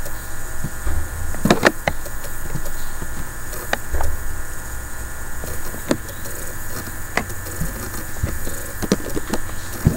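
Irregular clicks and knocks, a few close together about one and a half seconds in, over a steady electrical hum and low rumble, as a computer mouse is clicked and moved on a desk near the microphone.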